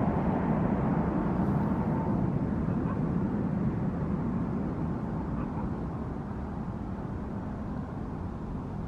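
Landing airplane's engine rumble, a steady low noise that slowly fades away, with a faint whine that dies out about two seconds in.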